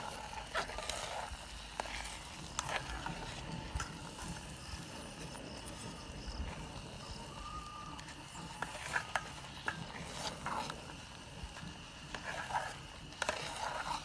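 Metal spoon stirring and scraping thick porridge in an aluminium pot, with irregular clinks and scrapes against the pot's sides.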